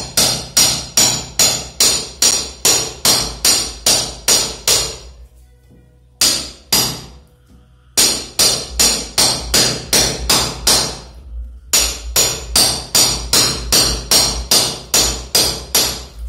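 Hammer striking a steel chisel in quick, even blows, about three a second, chipping a channel through plaster into the brick of a wall to chase in a water pipe. The blows pause briefly a few times.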